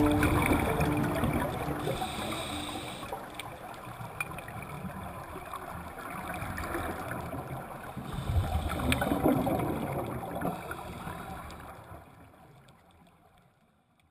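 Underwater water noise with gurgling, as picked up by a camera on a dive. It swells about eight seconds in, then fades away to silence at the end.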